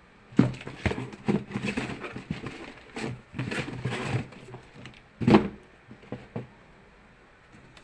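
Handling noises from a sneaker being picked up and turned over: a string of irregular rubs, taps and knocks for about five seconds, the loudest about five seconds in, then quiet.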